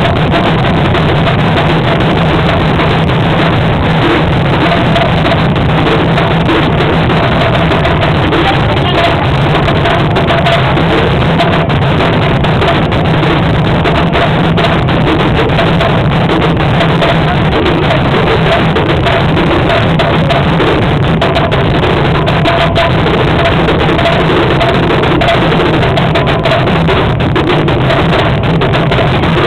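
Live band playing a pasacalle street-parade march: bass drum and snare drum keep a steady, dense beat, with a few held notes over them.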